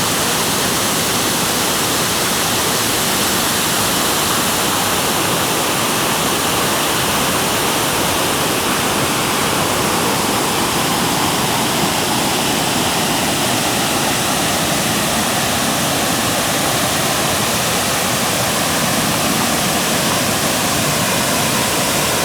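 Steady, loud rush of falling water, unbroken throughout.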